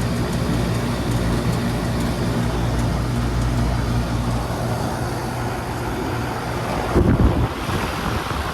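Outdoor central air conditioner condenser running, its compressor giving a steady low hum that fades out about halfway through. A brief louder low rumble comes near the end.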